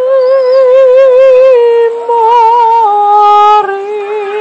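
A gondolier singing unaccompanied in a serenade style, holding long notes with a wide vibrato and stepping down in pitch a few times.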